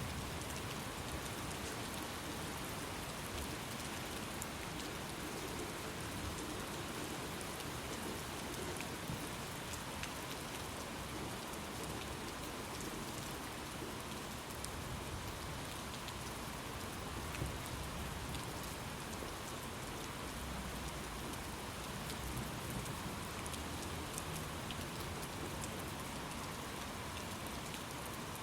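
Steady rain falling, with scattered sharp drop ticks and a low rumble swelling now and then underneath.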